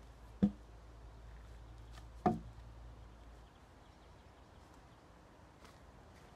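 Two sharp wooden knocks about two seconds apart, the second ringing on a little longer: peeled logs knocking against each other as they are laid across one another.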